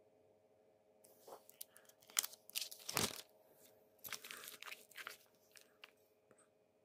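Irregular rustling and crunching noises for about four seconds, over a faint steady hum.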